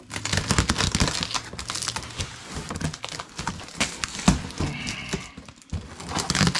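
Packing paper and wrapping crinkling and rustling as a packed item is unwrapped, with scattered handling clicks and one sharper knock about two-thirds of the way through.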